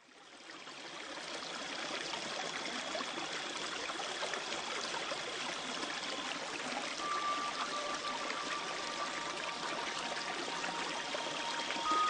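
Running water, like a flowing stream, fading in over the first two seconds and then steady. From about seven seconds in, a few long held tones come in over it as music begins.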